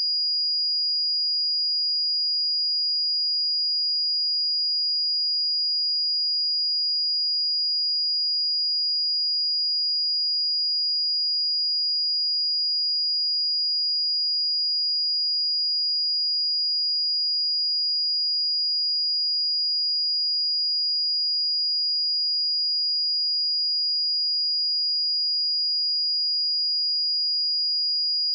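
A steady, continuous 4871 Hz sine-wave test tone, a single high-pitched pure tone at constant level.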